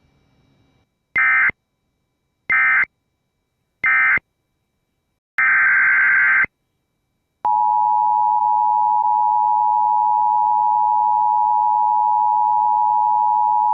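Emergency Alert System tones: three short bursts of SAME digital data warble, the end-of-message code closing the previous alert, then a longer data burst about five and a half seconds in. About seven and a half seconds in, the steady EAS two-tone attention signal starts and holds.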